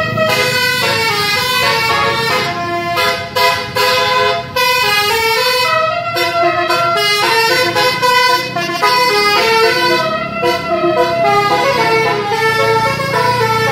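Bus 'telolet' musical air horn playing a quick tune: several horn notes sounding together and stepping from pitch to pitch, with a few brief breaks.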